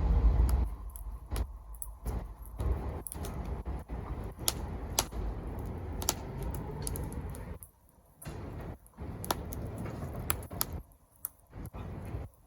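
Wood fire crackling, with sharp irregular pops over a low rumble that is strongest near the start; the sound drops out briefly twice in the second half.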